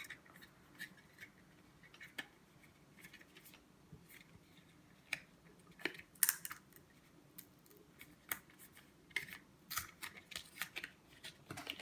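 Scattered light clicks and crinkles of a phone charging cable and its packaging being handled and unwrapped, with a cluster of sharper clicks about six seconds in and more near the end.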